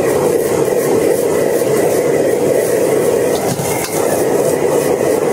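Gas wok burner giving off a steady loud rush as fried rice is stir-fried and tossed in the wok, with the metal ladle clicking and scraping against the wok.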